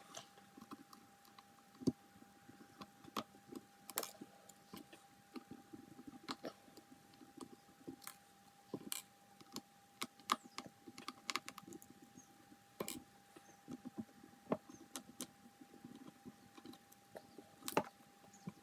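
Small Phillips screwdriver undoing the tiny screws that hold a laptop screen: faint, irregular clicks and scrapes of the driver tip and screws, with the odd sharper tick.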